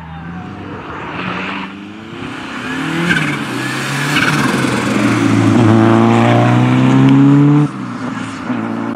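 Rally car engine coming closer under hard acceleration, its revs climbing and falling back with each gear change and growing louder. Near the end the sound drops off abruptly and a quieter car engine carries on.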